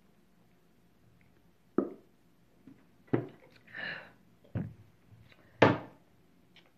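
A woman burping after gulping soda: four short, sharp burps roughly a second apart, the last the loudest, with a softer voiced mouth sound between the second and third.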